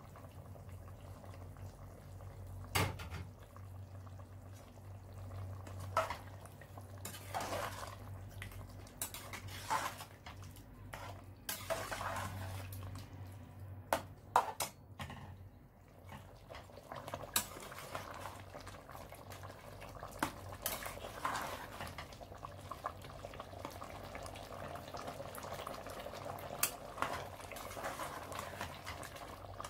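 Metal ladle stirring beef stew in a stainless steel pot, with scattered clinks and scrapes against the pot over a faint bubbling simmer.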